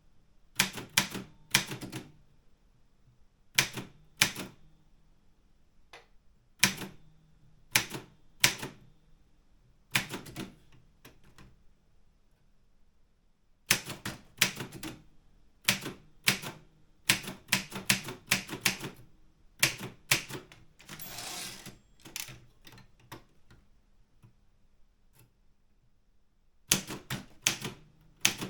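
Keys of an Optima Elite 3 typewriter striking in irregular bursts of sharp clacks, with pauses of a second or two between clusters. About two-thirds of the way through there is a longer rasping sound.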